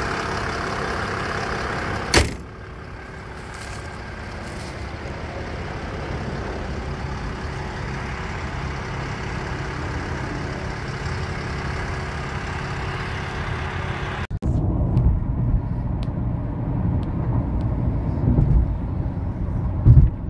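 Mercedes OM648 inline-six diesel idling with the hood open. About two seconds in the hood is slammed shut with a sharp bang, and the engine idles on more quietly behind it. About fourteen seconds in this gives way to the low rumble of highway driving heard inside the car.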